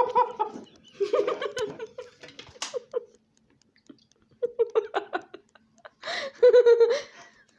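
High-pitched giggling in several short, choppy bursts, with a brief pause in the middle.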